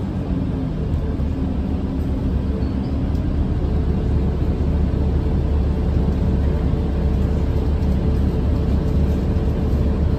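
Inside a 2008 New Flyer DE40LFA diesel-electric hybrid bus under way: the steady low rumble of its Cummins ISL diesel and hybrid drive, with road noise. A steady hum comes in about four seconds in.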